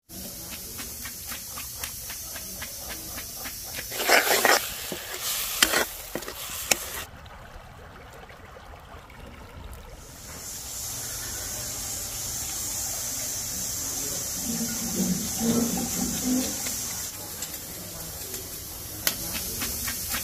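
A cleaver scraping scales off large fish on a stone slab: quick runs of rasping strokes, loudest a few seconds in and again near the end. In between, a steady sizzling hiss of curry cooking in an iron kadai over a wood fire.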